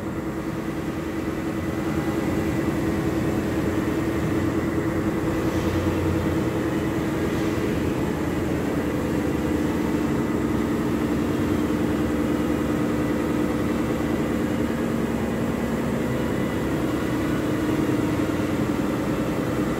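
Steady machine drone with a held low hum.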